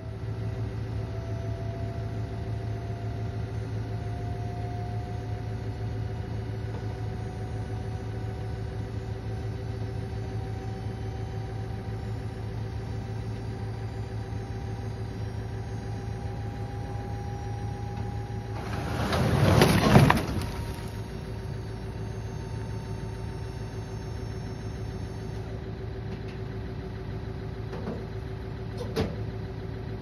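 Steady motor hum while the dump trailer's bed tips up, with a faint tone rising slowly. About two-thirds of the way in, the load of sugar pine logs slides off and crashes onto the ground, the loudest sound. A single knock follows near the end.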